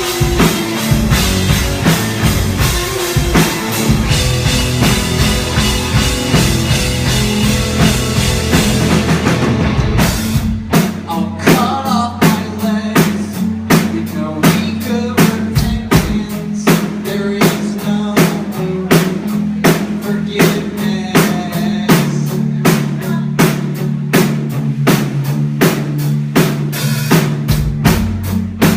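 A band playing music on drum kit and bass. About ten seconds in, the dense, cymbal-heavy playing drops back to a sparser groove of steady drum hits over a bass line.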